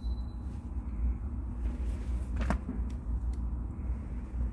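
Wiring harness connector being handled as wires are pushed into it, with one sharp click about two and a half seconds in and a couple of lighter ticks after it, over a low steady rumble.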